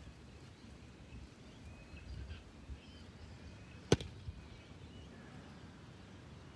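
One sharp knock about four seconds in, over quiet outdoor background with a few faint high chirps.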